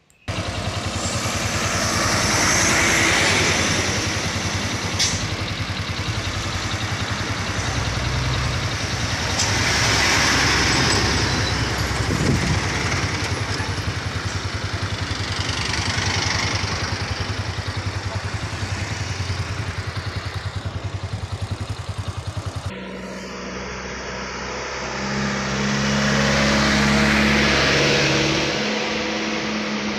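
Truck diesel engines labouring at full throttle as sugarcane trucks climb a steep bend, the noise swelling and fading several times as they pass close one after another. About two-thirds of the way in, the sound changes abruptly to a steadier, clearer engine note.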